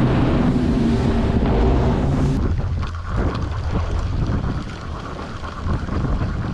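The boat's twin Mercury Verado 300 V8 outboards running steadily under way, with wind on the microphone. About two and a half seconds in, the engine sound cuts off suddenly, leaving only wind buffeting the microphone.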